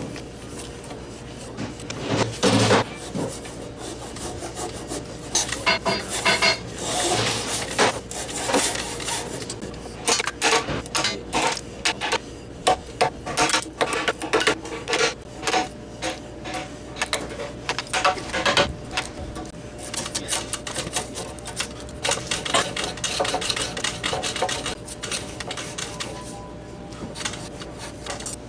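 Japanese woodworking hand tools, chisel and hand plane, cutting and scraping a timber beam. There are many short, irregular strokes of steel on wood, busiest from about two seconds in until shortly before the end.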